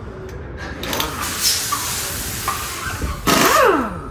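Pneumatic impact wrench working a truck wheel's lug nuts: two bursts with a hiss of air, each falling in pitch as the tool winds down, the louder one a little after three seconds in.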